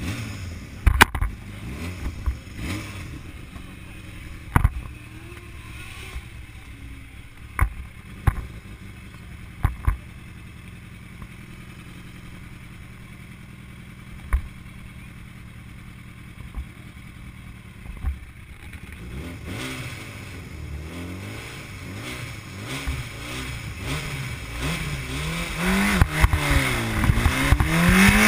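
Racing sidecar outfit's motorcycle engine idling steadily with a few sharp knocks, then revving up and down from about two-thirds in and getting louder as it pulls away, pitch rising near the end.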